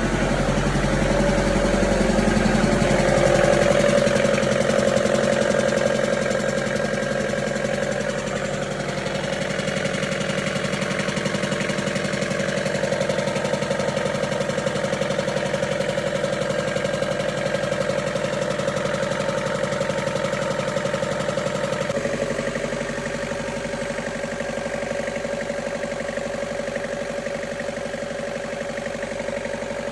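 Car engine running steadily, a little louder a few seconds in, then settling. The owner says this engine starts knocking from roughly 1,500–2,000 rpm.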